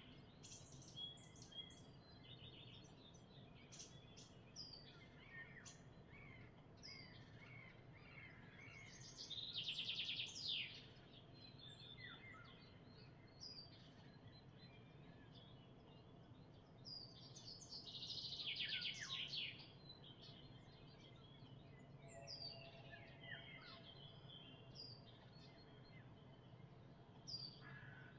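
Songbirds singing in the trees: short high chirps scattered throughout, and twice, about ten and eighteen seconds in, a louder, longer trilling song phrase that falls in pitch, over a faint low hum.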